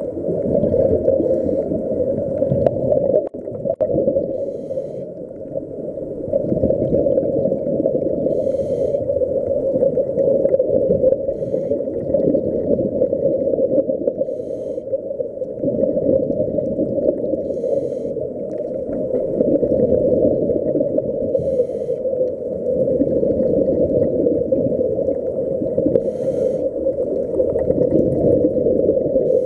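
Muffled underwater rumble through a camera's waterproof housing, with a scuba diver's exhaled regulator bubbles bursting out in short gurgling rushes every four seconds or so.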